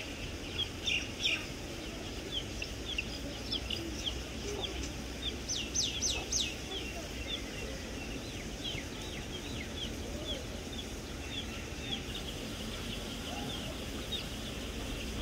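Young poultry peeping: a steady stream of short, high chirps, with a quick run of louder sweeping peeps about six seconds in.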